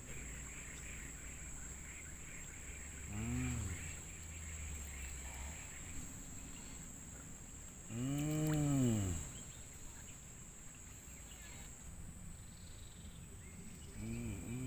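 An animal calling three times from the riverside forest, each call a low drawn-out note that rises and then falls in pitch, the middle one the loudest and longest, over a steady high whine.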